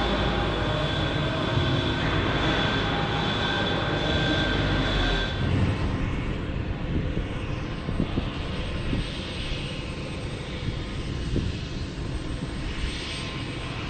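UH-60 Black Hawk helicopters' turbine engines running: a steady whine with a few held tones, which changes about five seconds in to a broader, more distant engine and rotor noise.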